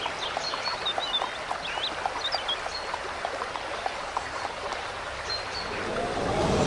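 Steady rushing water, like a stream, with scattered short bird chirps over it. Near the end a wavering tone rises in pitch.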